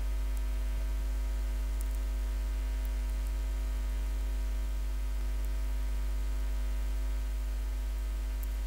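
Steady electrical mains hum, a low buzz with overtones and unchanging loudness. A few faint clicks sound over it.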